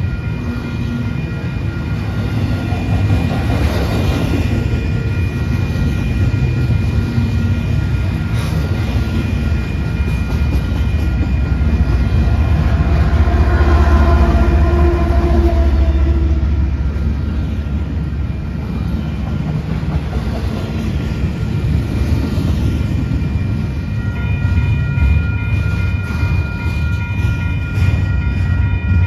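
A Union Pacific double-stack container train rolls past close by with a steady rumble of wheels on rail. About halfway through it swells as a mid-train diesel locomotive passes, its engine note rising and then fading. Thin, steady high ringing tones run under it all and grow stronger near the end.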